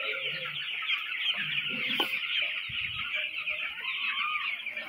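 A large flock of young broiler chicks, about twelve days old, peeping and chirping continuously in a dense chorus of short high calls. A single sharp click sounds about two seconds in.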